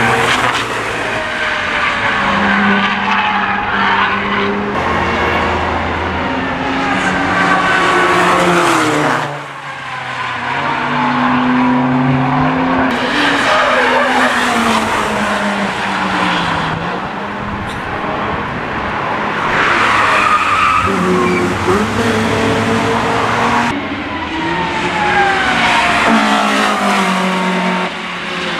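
Road cars driven hard through track corners one after another: engines revving up and down with gear changes, and tyres squealing as the cars slide. The sound cuts abruptly to a new car every few seconds.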